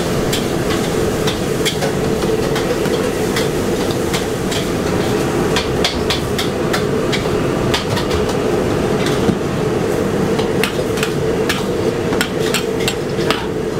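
A metal spatula scraping and clanking against a steel wok as pad thai noodles are stir-fried, with a steady rush from the gas wok burner underneath. The clanks come in quick, irregular runs and grow thicker from about halfway through.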